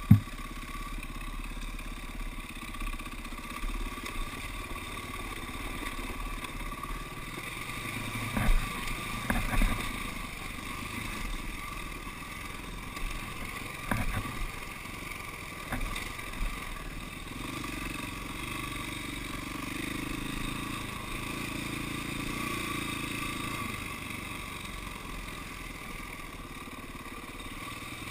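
KTM dirt bike engine running steadily while being ridden over rough ground, with a few sharp knocks and some clatter from the bike over bumps.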